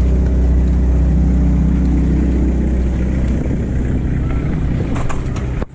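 A large engine running steadily with a deep, even hum. It turns rougher and less even about halfway through.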